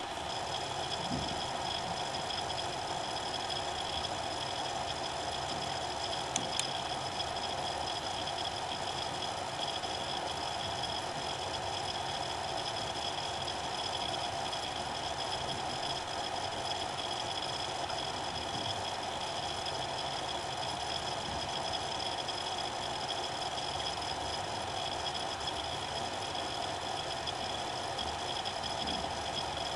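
Seagate BarraCuda ST2000LM015 5400 rpm 2.5-inch hard drive spinning with a steady whir and a high whine, with one brief tick about six seconds in.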